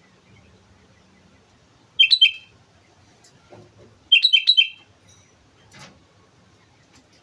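Sooty-headed bulbul singing: two short phrases of a few quick notes each, about two seconds apart, with a faint knock between them.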